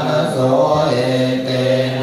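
Buddhist chanting in Pali, a low, nearly level monotone chant with the syllables running on and only brief breaks.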